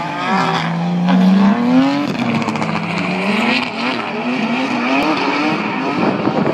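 Drift car's engine revving up and down repeatedly under throttle as it slides, with tyres squealing.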